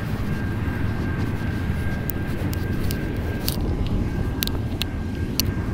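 Intermodal freight train rolling past, a steady low rumble, with a faint steady high tone and scattered sharp clicks over it.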